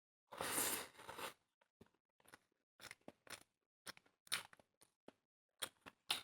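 Close-miked eating: a longer crunching noise about a second long near the start, then a run of short, sharp crunches and clicks of chewing.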